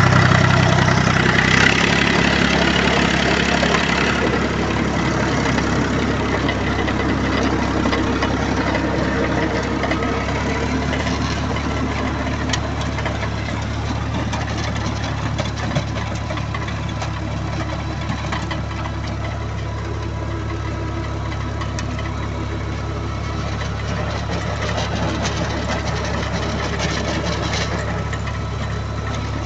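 Universal U445 tractor's diesel engine running steadily while it drives a rear-mounted rotary tiller through garden soil, easing slightly in loudness over the first ten seconds.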